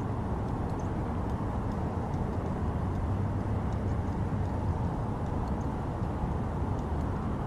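Steady low rumble of interstate highway traffic, with a few faint high ticks scattered through it.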